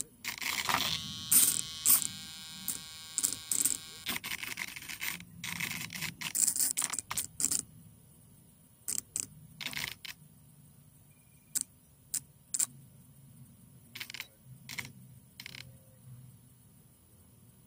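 Irregular clicks, knocks and scrapes of a foam RC Spitfire model being handled, picked up close by its onboard camera's microphone. They come thick in the first half and as single clicks later. A steady whine with several tones sounds for about three seconds near the start.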